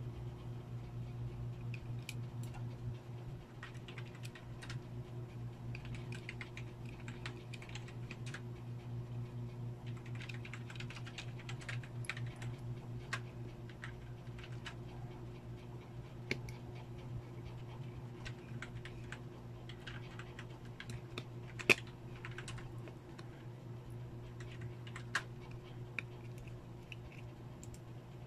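Small scattered clicks and taps of a metal pry tool, tweezers and fingertips working on a smartphone's mainboard and its connectors, with one sharper, louder click about two-thirds of the way through, over a steady low hum.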